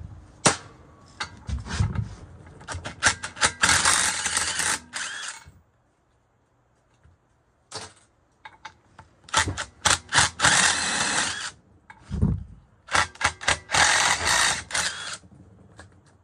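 Cordless power driver running in three bursts of a second or two each, spinning fasteners off the end bell of a large electric motor, with quick clicks and rattles of metal parts between the bursts.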